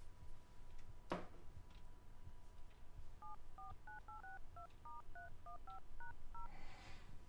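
Phone keypad dialing a number: a quick run of about a dozen touch-tone beeps, each two notes at once, after a single sharp click about a second in. A soft rustle follows near the end.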